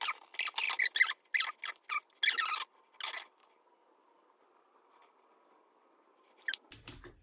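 Makeup handling close to the microphone: a quick, irregular run of small clicks and taps for about three seconds, then near silence, with a low bump and a click near the end.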